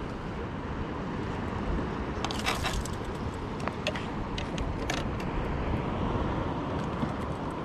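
Small clicks and rattles of fishing pliers and a lure being handled while a fish is unhooked over a plastic cooler, with a brief rustling clatter about two and a half seconds in, over a steady rumble of wind on the microphone.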